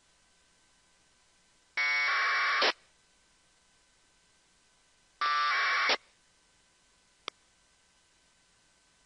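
Two APRS packet bursts on 144.390 MHz, heard as narrowband-FM receiver audio from an RTL-SDR. Each is a short burst of 1200-baud AFSK data tones, under a second long, and the second comes about three and a half seconds after the first. Each burst is one packet that the decoder turns into a new line of text. A single short click follows near the end, over a faint steady hiss.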